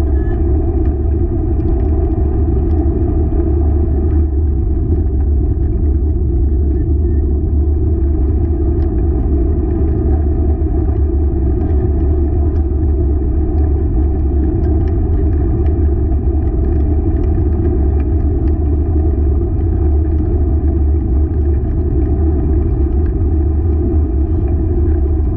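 Steady rumble of a wheeled dog rig rolling along a trail, with faint scattered clicks and rattles.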